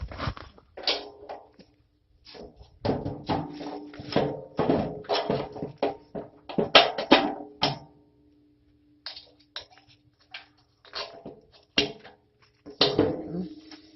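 Steel water-rack pieces of a compost turner being fitted into place: irregular clanks and knocks in clusters, with a steady ringing tone beneath them through the middle and a short pause about eight seconds in.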